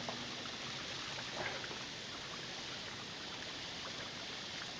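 Waterfall pouring into a rock pool: a steady rushing splash of falling water.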